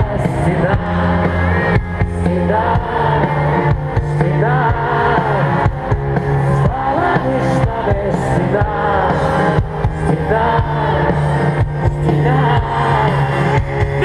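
Live band playing a song over a stadium sound system, with a singing voice over steady bass and drums.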